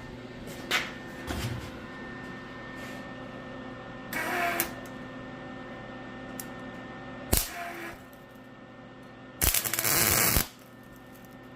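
MIG welder striking short tack welds with its shielding gas on: a half-second burst about four seconds in, a brief one a little after seven seconds, and a longer one of about a second near the end, over a steady electrical hum.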